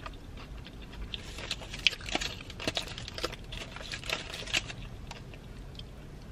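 A person chewing a mouthful of burrito close to the microphone: irregular soft wet clicks and crackles, busiest in the middle few seconds.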